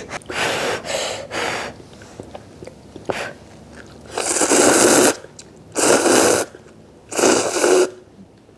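Person slurping instant cup ramen noodles in about five loud slurps, two close together near the start and the longest about four seconds in.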